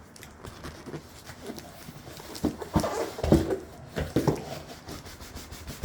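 Cardboard box of a studio monitor being turned upside down and handled: rustling and knocks, with a few short squeaky sounds in the middle.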